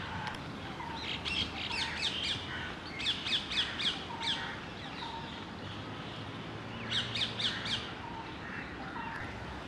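Sharp, high-pitched chirping calls in three quick bursts of four to six falling notes each, about four notes a second.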